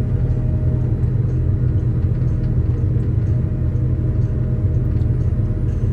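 Tractor and trailed Grimme potato harvester running steadily while lifting potatoes, heard from inside the tractor cab: an even low rumble with a faint hum above it.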